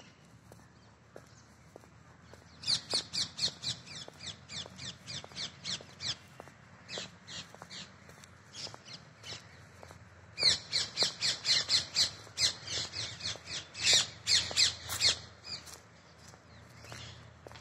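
A bird calling in rapid runs of short, sharp notes that fall in pitch, about four or five a second. There are two bouts, and the second, starting about ten seconds in, is louder.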